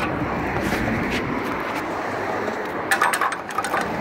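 Steady street traffic noise with a few sharp metallic clicks, bunched together about three seconds in.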